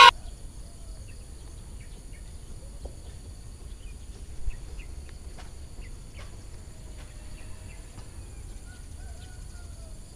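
Faint outdoor ambience: a steady high-pitched insect buzz, with scattered short bird chirps and a few gliding bird calls.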